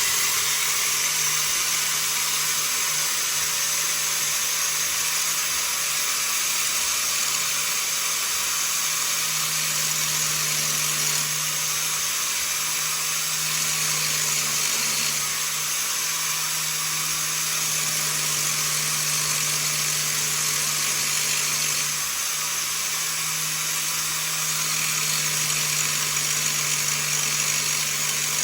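Makita grinder running continuously under load, grinding metal down so the belt will clear. It is a steady high hiss with a constant low motor hum, easing slightly a few times.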